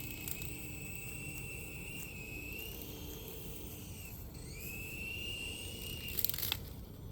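High electric whine of a Sky Rover toy helicopter's small motor spinning its rotors. The pitch drops about four seconds in, then glides back up and holds steady. A few brief clicks follow near the end.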